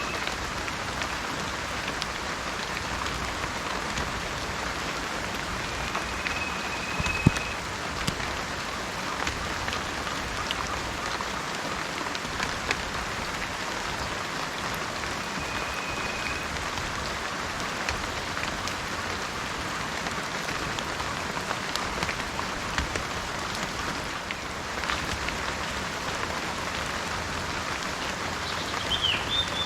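Steady rain falling, a continuous hiss with many small drop ticks and one sharper click about seven seconds in. A few faint short high whistles sound over it, and a brief chirp near the end.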